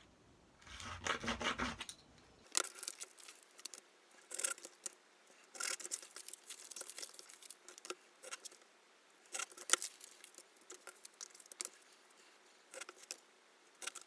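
Serrated tracing wheel rolled along a ruler over a paper pattern, a string of short raspy strokes that perforate the marking lines, mixed with the rustle of the paper and the acrylic ruler being shifted.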